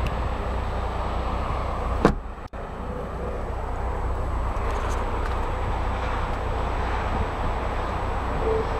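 Steady outdoor rumble and hiss, with a single sharp knock about two seconds in as the car's rear door is shut, followed by a brief gap in the sound.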